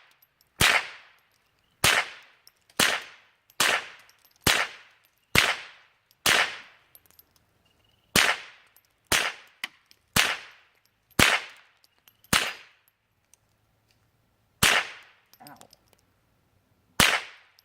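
A .22 LR semi-automatic firearm fired shot by shot, about fourteen sharp cracks roughly a second apart, each with a short fading echo. There is a longer pause about two-thirds of the way through.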